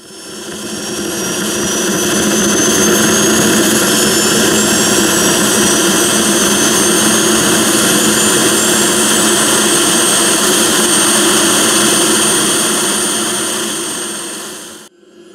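Radio-controlled model jet's turbine engine running: a loud rushing roar with a high whine that climbs slowly in pitch, fading in at the start and dropping away sharply near the end.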